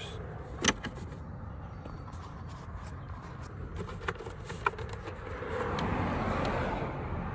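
Plastic trim panel being pressed back onto its clips, with a sharp click about a second in and two smaller clicks later. Vehicle noise rises and fades in the background near the end.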